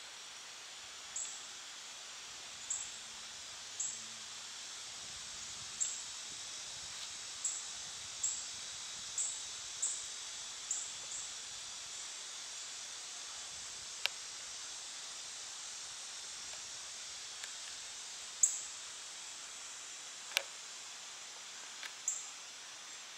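Outdoor ambience: a steady high hiss with short, high-pitched chirps coming every second or so at uneven intervals, and a couple of sharp clicks later on.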